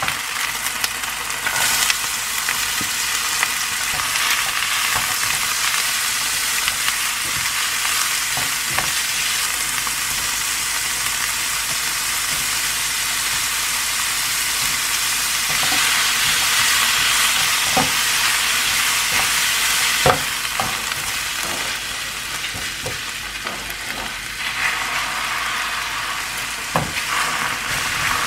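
Oil sizzling steadily in a frying pan as scallions, then diced ham, vegetables and shrimp fry. A spatula stirs the food and taps and scrapes against the pan now and then, with one sharper tap about twenty seconds in.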